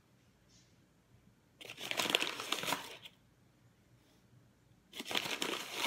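A spoon scooping and tipping granulated sugar, heard as two crinkly, scratchy bursts of about a second and a half each.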